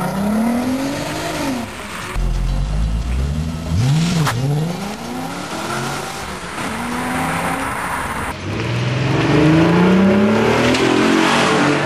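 Car engines and exhausts revving and accelerating in several short clips, the engine note climbing and dropping again and again. The loudest part is a long rising pull in the last few seconds.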